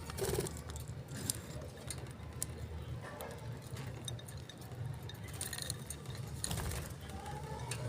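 Pet parrots chirping faintly now and then among scattered small clicks and clinks, over a low steady hum.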